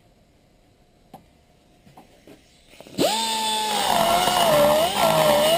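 A few light clicks of handling, then about halfway through a die grinder starts, spinning up quickly to a high whine. Its pitch dips and wavers as the burr cuts into the exhaust port of a Jeep 4.7 V8 aluminium cylinder head during porting.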